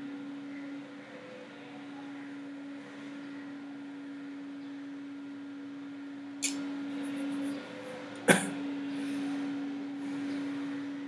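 Steady low electrical hum with faint hiss, broken by a short rustle about six and a half seconds in and one sharp, loud click just past eight seconds.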